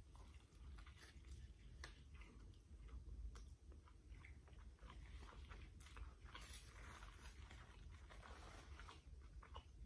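Faint close-up mouth sounds of someone biting into and chewing a soft chicken burrito, with small wet clicks scattered throughout.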